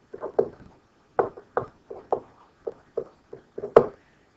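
A stylus tapping and knocking against a pen-tablet or screen surface while writing by hand: about a dozen short, irregular taps, the loudest near the end.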